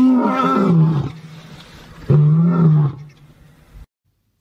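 Lion roaring: two drawn-out low calls, the second about two seconds in.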